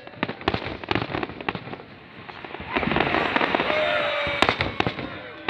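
Fireworks display: a string of sharp bangs from bursting shells, with a louder, denser spell of crackling a little past halfway.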